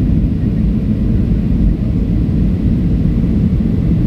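Airliner cabin noise in flight: a steady, loud low rumble of engines and airflow heard from inside the passenger cabin.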